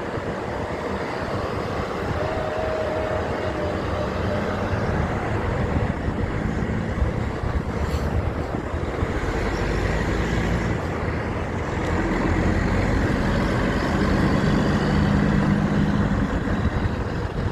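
Heavy trucks driving past on the road: steady engine and tyre noise that slowly grows louder, with a low engine drone strongest in the second half.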